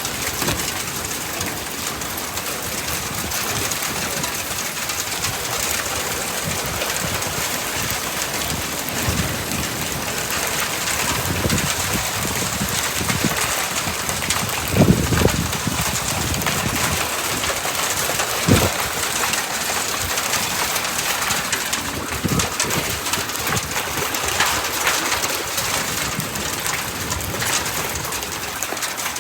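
Heavy thunderstorm rain falling steadily, with a few dull low thumps about halfway through.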